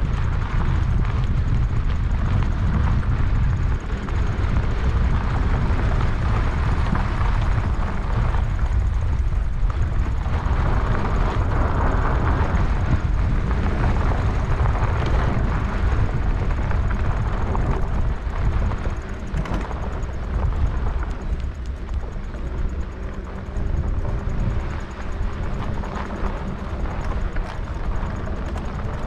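Wind buffeting the microphone of a moving electric bike, a steady low rumble, with the bike's tyres rolling over the trail; it eases slightly past the middle.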